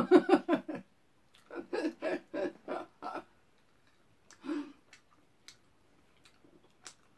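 A person laughing in two runs of short voiced bursts, then one more short vocal sound and a few faint clicks near the end.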